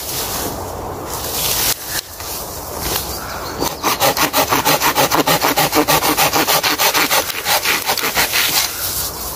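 Wood being sawn by hand. Irregular rasping strokes give way, about four seconds in, to a fast, even run of sawing strokes, about five a second, which stop just before the end.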